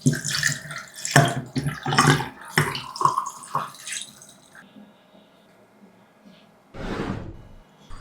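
Water splashing and running, as in a kitchen sink, in irregular bursts for about four seconds, then a short rush of water near the end.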